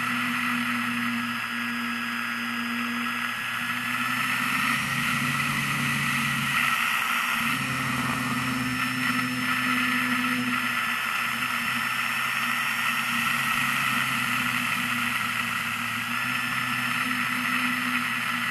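RC model airplane's motor and propeller running in flight, heard from a camera mounted on the plane: a steady drone and whine over rushing wind. The pitch shifts a few times as the throttle changes, around 1.5, 3.5, 7.5 and 11 seconds in.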